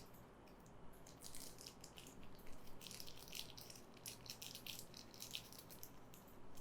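Faint handling noises of earbud packaging: light rustles and small irregular ticks as the box contents and ear tips are handled.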